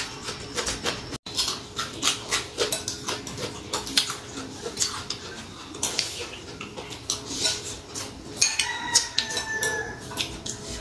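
Close-up chewing of crunchy raw cucumber: an irregular run of sharp crunches, several a second.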